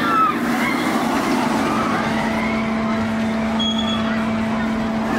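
B&M inverted roller coaster train rushing past close by, loudest just after the start, followed by the steady rumble of the train running on along the steel track with a steady low hum beneath it. A few short rider cries can be heard at the start.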